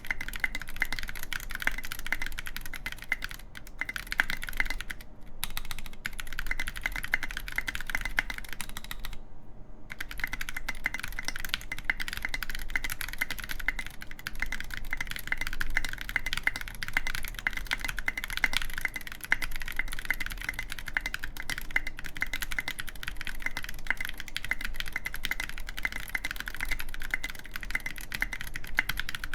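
Continuous typing on a Gok 7V mechanical keyboard with lubed Zealio v2 tactile switches, an aluminium plate and SA-profile keycaps: a dense, steady stream of keystrokes, with one short pause about nine seconds in.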